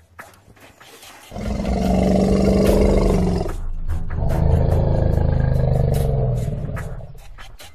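Two long, deep animal roars, one after the other, the second fading out near the end.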